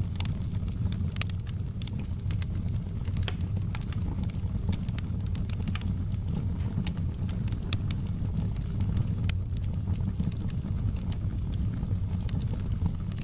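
Wood fire burning in a fireplace: a steady low rumble of flames with frequent, irregular sharp crackles and pops from the burning wood.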